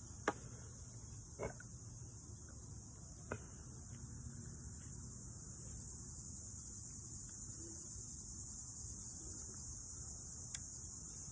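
A steady, high-pitched chorus of insects, such as crickets, running evenly throughout. A few sharp clicks or knocks close by cut through it, the loudest about a quarter second in and another near the end.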